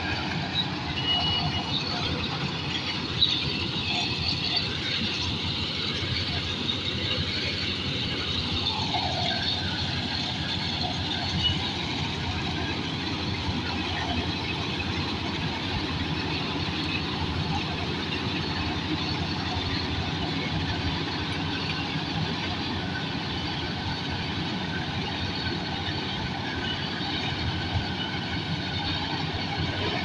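Fieldking crawler combine harvester running steadily while it cuts grain, engine and machinery together, with faint thin high tones over the engine.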